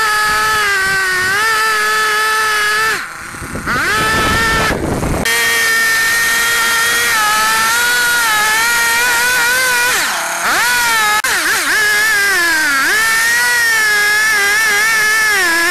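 Stihl chainsaw running at full throttle while cutting into a large red oak log. The engine eases off briefly about three seconds in and again about ten seconds in, then revs back up.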